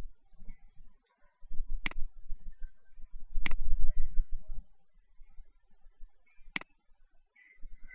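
Three sharp computer-mouse clicks, about two, three and a half, and six and a half seconds in, over a low, dull rumble that is loudest around the second click.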